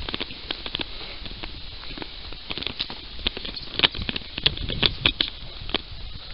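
Irregular crackling and ticking of dry grass and twigs under a hiker's steps, with a denser cluster of sharp crackles in the middle.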